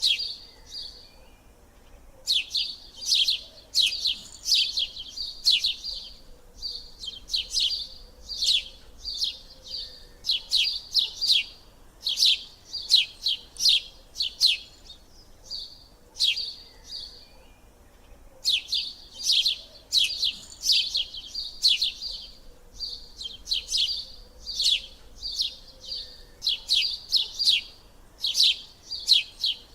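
Birdsong: quick, high-pitched chirps and trills in phrases a second or two long, with short pauses between them. The same sequence appears to repeat about every 16 seconds, as a looped background recording would.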